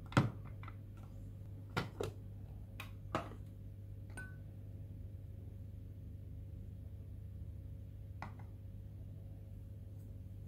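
Hard plastic clicks and knocks from a Tupperware Turbo Chef pull-cord chopper being taken apart by hand, its lid and blade unit handled against the bowl. About seven sharp clicks, the loudest right at the start, a cluster two to three seconds in and a last one near the end, over a steady low hum.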